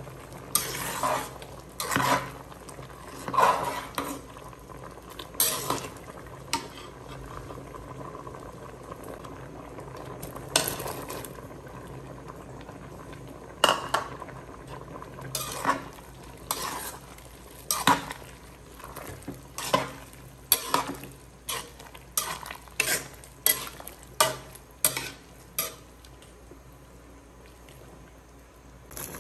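Metal ladle stirring a large metal pot of milky macaroni soup, with many irregular clinks and scrapes of metal on metal against the pot's sides and bottom.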